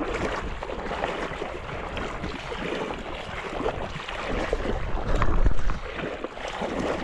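Wind buffeting the microphone over lapping water, with a stronger gust about five seconds in.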